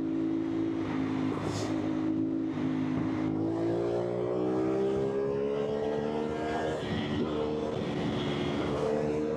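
CFMOTO 450SR's 450 cc parallel-twin engine under riding load: it holds a steady pitch for a few seconds, then rises as the bike accelerates. About two-thirds of the way in the pitch drops suddenly at an upshift, and then it climbs again.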